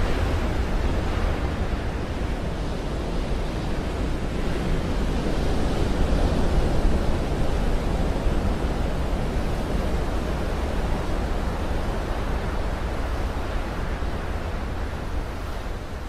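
Big ocean surf from an 8-foot northwest swell breaking and washing, a steady loud roar of white water. It swells a little about six seconds in and eases toward the end.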